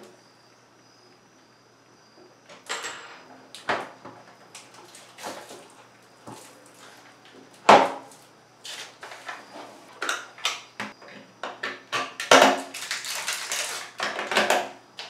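Hard plastic clicks and knocks as an electric bidet seat is handled and pushed onto its mounting plate, with one sharp knock about eight seconds in. In the last few seconds, dense crinkling as protective plastic film is peeled off the seat.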